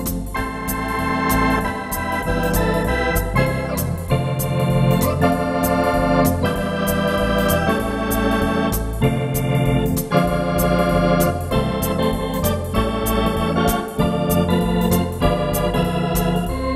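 Wersi Atlantis electronic organ played live with drawbar organ voices in a swing style: sustained chords and melody over a pedal bass line, with a steady ticking beat.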